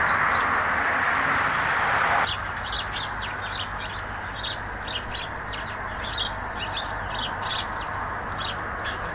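A steady rushing noise that cuts off suddenly about two seconds in, then small garden birds chirping rapidly and continuously in a busy twittering chorus.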